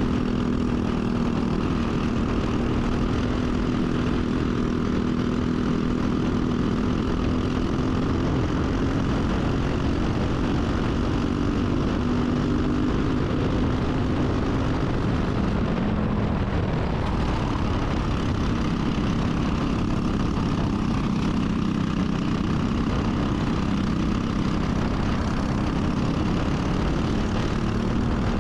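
Single-cylinder Briggs & Stratton kart engine running hard at racing speed. Its note sags about halfway through and climbs back near the end as the throttle comes off and on again.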